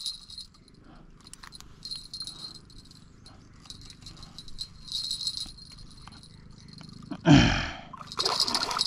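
Fishing reel drag clicking in short spells as a large tra catfish pulls line out against the rod. About seven seconds in comes one short, loud sound that falls in pitch.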